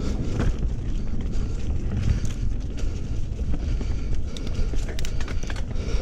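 Mountain bike riding fast down a dirt singletrack: a steady low rumble of tyres and air on the camera, with frequent clicks and rattles of the chain and frame over bumps, busiest about five seconds in.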